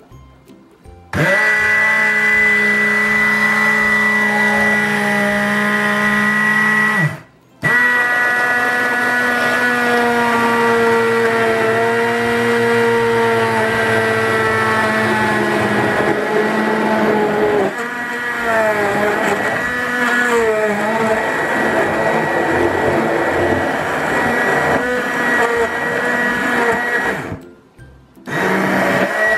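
SEMP Easy MX6018 immersion (stick) blender running in its plastic beaker, blending banana chunks and milk: a steady motor whine whose pitch wavers as the blade works through the fruit. It starts about a second in, is switched off for a moment around seven seconds, runs on, and cuts out briefly again near the end before starting once more.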